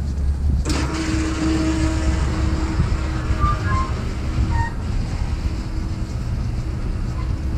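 City street traffic: a steady low rumble, then about a second in a sudden hiss from a vehicle that fades over several seconds, with a few short squealing tones partway through.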